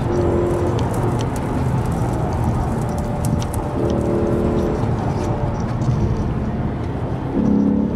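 Car engine running with tyre and wind noise, heard from inside the cabin while driving at highway speed. A steady low rumble goes throughout, and a humming engine tone comes and goes three times.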